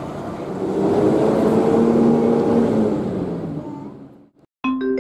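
A motor vehicle's engine running in street traffic, growing louder, then dropping in pitch and fading out. Just before the end a short marimba-like jingle begins.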